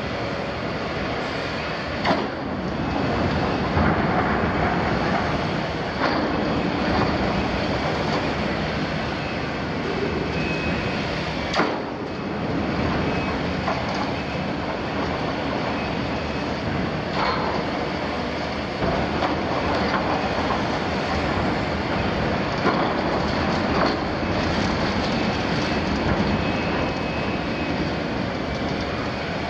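Liebherr 974 demolition excavator working its demolition tool into the steel wall of a double-walled oil tank: a steady engine and hydraulic drone under load, with grinding and creaking of sheet steel, brief metal squeals and a few sharp clanks.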